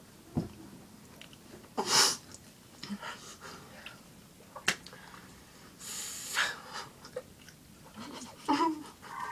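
Stifled, breathy laughter: a few sharp bursts of exhaled breath, the loudest about two seconds in, with short wheezy gasps and a couple of clicks between them.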